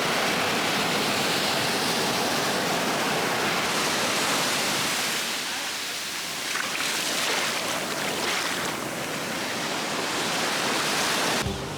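Ocean surf washing onto a beach: a steady rushing hiss that eases about halfway through and builds again.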